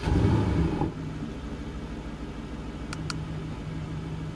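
Aston Martin DB11's 4.0-litre twin-turbocharged V8 coming off its start-up rev flare in the first second, then settling into a steady idle.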